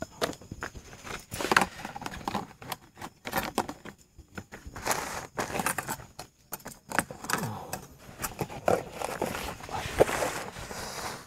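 Plastic food containers and camping gear being handled and packed away: irregular clatters, knocks and rustles.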